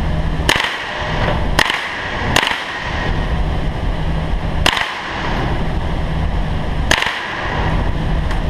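Five single rifle shots at uneven intervals, each a sharp crack with a short ringing tail, over a steady low hum.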